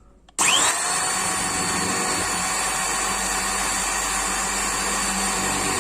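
Buildskill 10 mm corded electric drill switched on about half a second in, its motor whining up to full speed within a fraction of a second, then running steadily at high speed while drilling into a brick.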